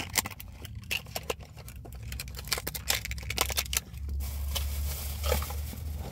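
Thin clear plastic candy packaging crinkling and clicking as fingers work it open, a quick irregular run of sharp crackles, with a low steady hum underneath.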